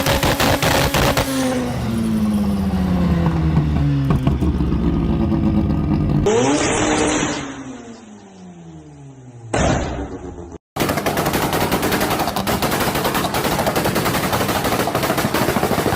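Mazda RX-7 rotary engine exhaust firing rapid strings of pops and bangs. The revs fall away with the bangs carrying on, then in a quieter stretch the engine revs up and drops back. After a short gap about 11 seconds in, a dense, nonstop rattle of exhaust bangs takes over, of the kind anti-lag and two-step launch control produce.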